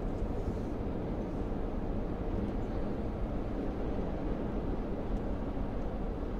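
Steady cabin noise of a car driving at road speed: a low, even rumble of tyres on the road with the engine running underneath.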